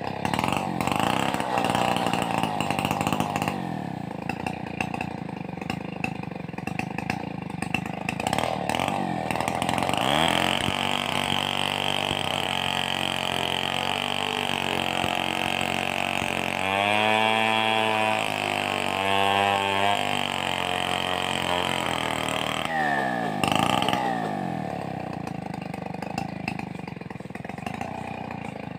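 Stihl 038 two-stroke chainsaw running hard, cutting hard coconut palm wood. The engine climbs to high revs about a third of the way in and holds there, its pitch sagging and recovering a couple of times under load, then drops briefly and picks up again near the end.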